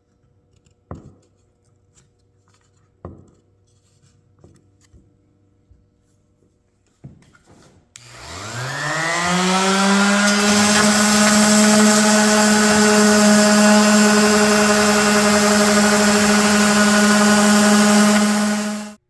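A few light knocks, then about eight seconds in an electric power tool's motor spins up with a rising whine and runs steadily at full speed until it cuts off near the end.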